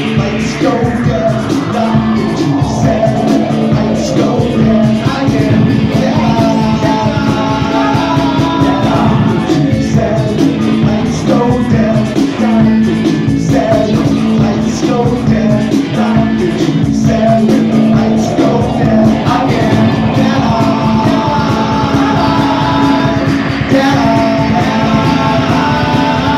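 Live rock band playing loud: electric guitars, electric bass and drums, with sung vocals coming in around a quarter of the way through and again in the last third.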